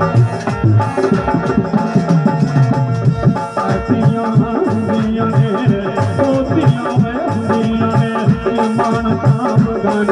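Live devotional music: a Casio electronic keyboard plays a melody over a steady, fast hand-drum rhythm.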